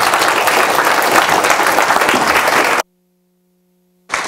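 Audience applauding at the end of a talk, many hands clapping densely. The sound cuts out suddenly about three seconds in, then the applause comes back just before the end.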